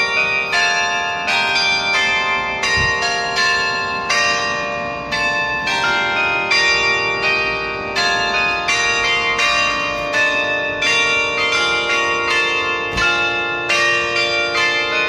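Church bells of many different pitches ringing in quick succession, about three strikes a second, each bell ringing on so that the strokes overlap into a continuous peal.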